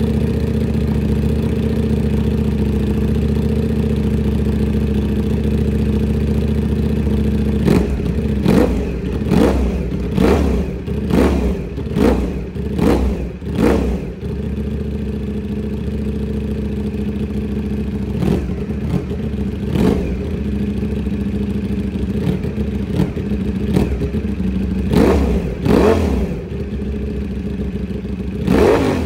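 Ducati Panigale V4's 90-degree V4 engine running through an FM Projects full titanium exhaust: it idles steadily, then about eight seconds in gets a quick run of sharp throttle blips, each rev rising and dropping straight back to idle. After a spell of idle, further single blips follow every few seconds.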